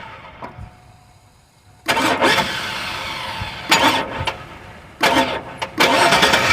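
Repeated attempts to start a 2002 Chevy Avalanche's 5.3 V8 that won't start on a cold morning: each burst of engine sound comes on suddenly and dies away, about two seconds in, near four seconds, and twice after five seconds, without the engine settling into running.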